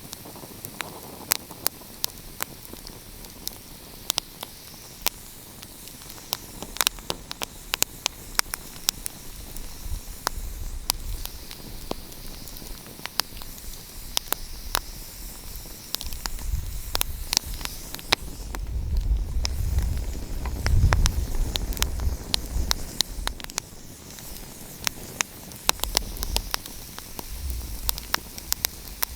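Wood fire crackling: frequent sharp pops and snaps over a soft hiss. A low rumble swells up in the middle and dies away again.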